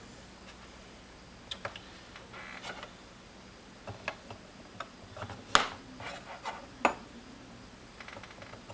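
Scattered clicks and knocks of hard pieces being handled and set down: the ceramic stones and plastic base of a Spyderco Sharpmaker being set out. The sharpest knock comes a little past halfway, with a brief rub early on.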